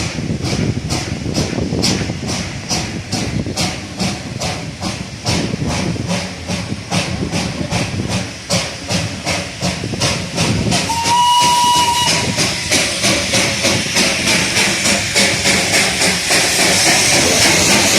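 Darjeeling Himalayan Railway steam locomotive working with even exhaust chuffs, about three a second. It gives a short whistle about eleven seconds in, and steam hiss grows louder from then on.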